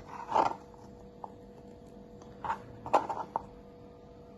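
A few short knocks and clatters of kitchen items being handled while cucumber goes into a shaker bottle: one about half a second in, then a quick cluster around the three-second mark, over a faint steady hum.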